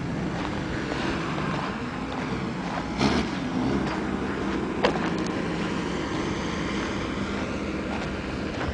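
2005 Ski-doo Summit snowmobile engine idling steadily, with a couple of short knocks about three and five seconds in.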